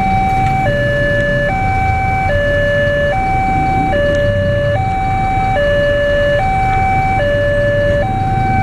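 Railway level-crossing warning alarm sounding its two-tone signal, a higher and a lower tone alternating about every 0.8 s, which warns that a train is coming and the barrier is closed. A low rumble runs underneath.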